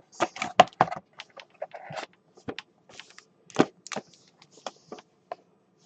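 Card packs and an emptied cardboard box being handled on a table: scattered sharp taps and clicks with a few short rustles of wrapper.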